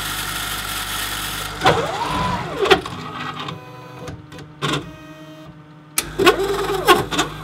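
DS2 ELISA processor priming wash buffer through its tubing: a pump runs steadily for the first second and a half, then the machine's motors drive its mechanism twice with a whine that rises and falls in pitch, with sharp clicks between.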